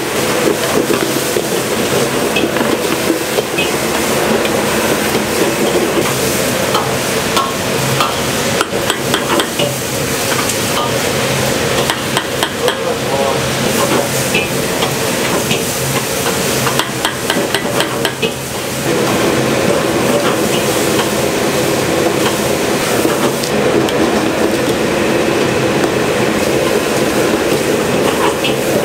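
Wok cooking: food sizzling in a wok over a loud gas burner, with a metal ladle clanking and scraping against the wok in short clusters of strikes. The sizzle grows louder and steadier a little past the middle.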